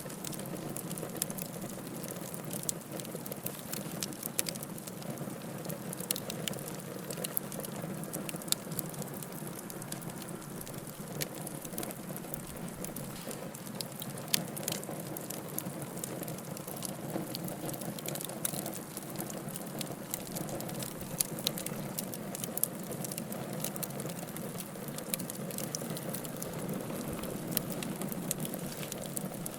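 Fire burning with a steady rush, peppered with frequent sharp crackles and a few louder pops.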